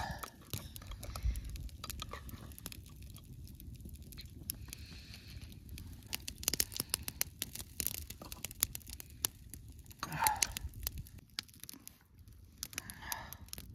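A serving spoon scrapes and clinks in a cooking pot as chicken curry is dished onto steel plates, with light rustling and knocks of dishes on dry grass. A brief murmur of a voice comes about ten seconds in.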